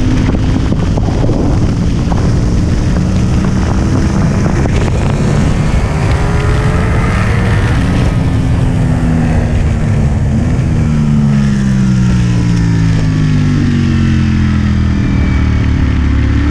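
Sport motorcycle engine at speed on a race track, its pitch climbing, then falling for several seconds through the middle as the bike slows, over a heavy low rush of noise.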